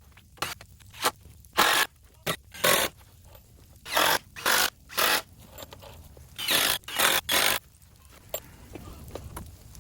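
A series of short, harsh scraping strokes, about a dozen, each a fraction of a second long and coming in irregular groups of two or three.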